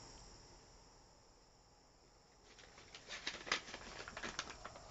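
Near silence at first, then from about halfway in a paper bag rustling and crinkling, with scattered small clicks and crackles as it is handled.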